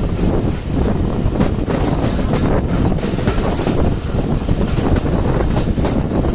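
Broad-gauge passenger train running on the track, heard from aboard: a loud, steady rumble of wheels on rail with faint clicks of rail joints.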